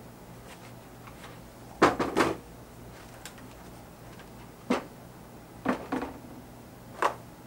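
Knocks and clunks of parts being handled and set down on a worktable: a pair about two seconds in, then single knocks and a pair spread over the next five seconds, over a low steady hum.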